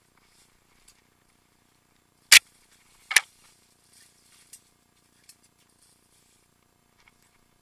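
Two sharp knocks about a second apart, then a few faint ticks: a mountain bike and its mounted camera jolting over a rough trail.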